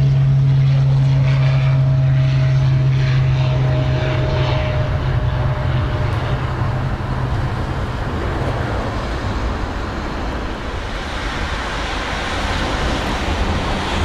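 Pilatus PC-12's single turboprop at takeoff power: a steady propeller drone with a whine above it that sinks slightly in pitch and fades out about halfway through as the aircraft climbs away. A broad, steady rumble is left after it.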